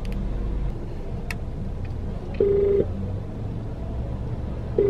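Phone ringing tone while a call connects: two short, steady tone pulses about two and a half seconds apart, with a faint click before them. Under it runs the low, steady rumble of the car's cabin.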